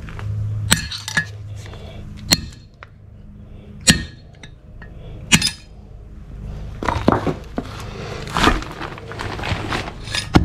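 Hammer blows driving a loose wheel bearing race out of a GMC Sierra 3500 dually's rear hub: about five sharp metal-on-metal strikes spaced a second or more apart, then a denser run of lighter metallic clinks and rattling from about two-thirds of the way through.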